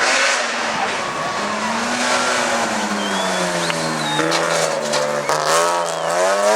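Rally car engine running hard on a stage. The engine note sags and picks up again, then the revs swing up and down quickly several times in the second half, with brief thin high squeals around the middle.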